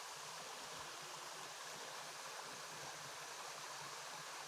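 Steady rush of a thin curtain waterfall: many small streams of water falling from a rock ledge and splashing onto stone below.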